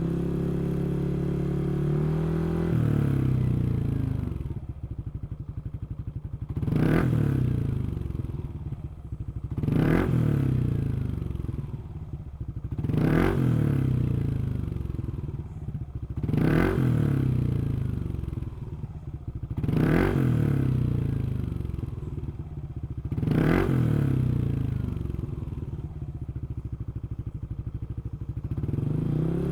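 Yamaha NMAX155 scooter's single-cylinder engine through a Yoshimura GP-MAGNUM Cyclone exhaust, first running at raised revs and settling to idle. It is then blipped six times, about every three seconds, each rev rising sharply and dropping back to idle.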